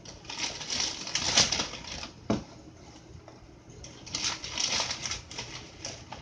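Straw mixed with mushroom spawn being stuffed and packed down by hand into a plastic grow bag: rustling and crunching of straw and plastic in two spells, with a single thump a little after two seconds in.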